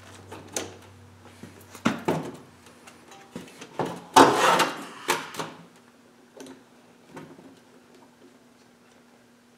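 Knocks and clanks of tools and a small engine block being handled on a metal shop cart, the loudest a scraping clatter about four seconds in as the Briggs & Stratton engine is tipped upright. After about six seconds only faint clicks are left.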